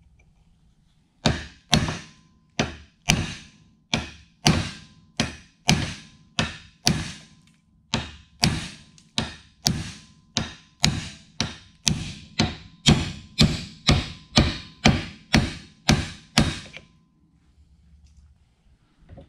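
Hammer blows on a driveshaft yoke, working a U-joint's bearing caps: a long run of about 35 evenly paced strikes, roughly two a second, each with a short metallic ring, starting about a second in and stopping near the end.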